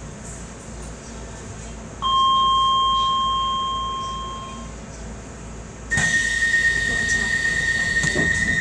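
DLR train's door signals at a station stop: a single chime rings sharply about two seconds in and fades over a few seconds, then a steady high warning tone sounds for about three seconds over a rushing noise and a couple of knocks, the doors closing before departure.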